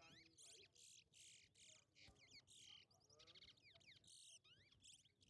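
Twa-twa (large-billed seed finch) singing in a song-count race: repeated quick runs of high whistled, sweeping and buzzy notes, each full song counted toward the bird's total.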